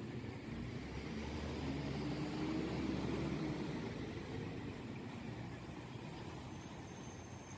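Diesel engine and tyres of a Bronto Skylift aerial fire truck driving past, getting louder to a peak about three seconds in and then fading as it moves away.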